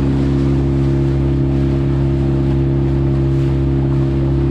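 Fishing boat's motor running steadily at cruising speed, a constant engine drone with water and wind noise.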